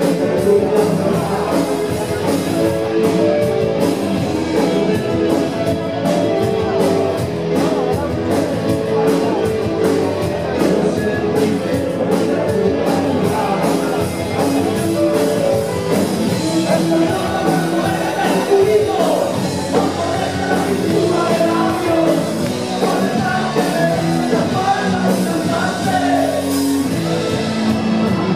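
Rock band playing live: drums with steady cymbal strokes under sustained guitar chords, and a male lead voice singing, most prominent in the second half.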